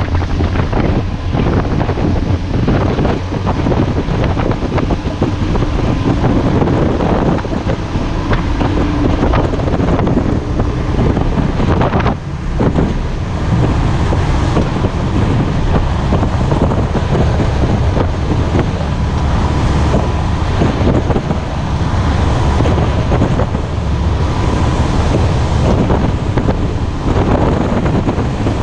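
Wind buffeting the camera microphone on a powerboat under way, over the steady drone of the boat's engine and the rush and slap of the hull through light chop.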